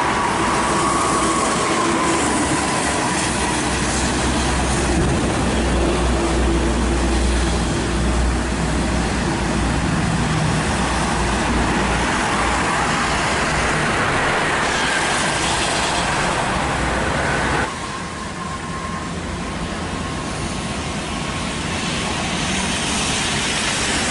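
Coaches and highway traffic going by on a wet toll road: a steady hiss of tyres on wet asphalt and a heavy low engine rumble as a large coach passes. The level drops suddenly about three-quarters of the way through, to quieter traffic noise.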